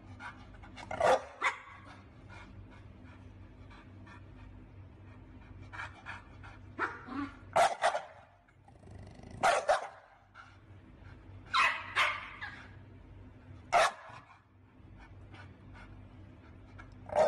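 American Bully dog barking: about ten short barks, mostly in quick pairs, with pauses of a few seconds between them.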